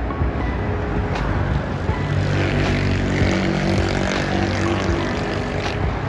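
A motor vehicle's engine hum swells about two seconds in and fades near the end, as it passes close over steady road traffic noise.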